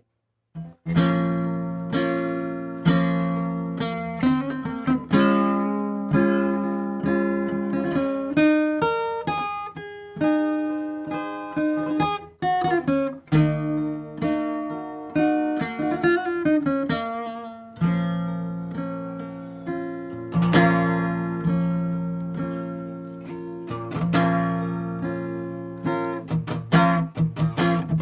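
Acoustic guitar playing an instrumental interlude: plucked melody notes and strummed chords, each ringing and fading, with a brief pause around half-way through.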